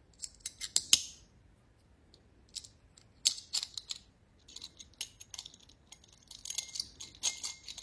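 Irregular light clicks and metallic clinks of a small disc cutting blade and its steel arbor being handled and turned over by hand, the blade just fitted onto the arbor.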